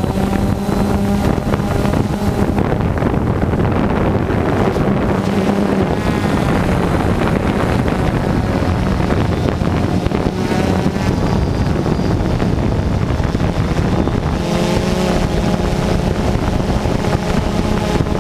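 Multirotor drone's electric motors and propellers buzzing steadily in flight, with wind noise on the on-board microphone. The pitch of the buzz shifts about three-quarters of the way through as the throttle changes.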